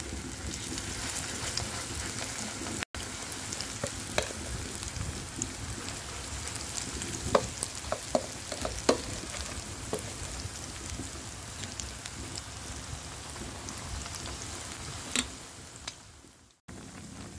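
Sweet-corn fritter batter deep-frying in hot oil: a steady sizzle with scattered sharp pops, several louder ones close together about halfway through.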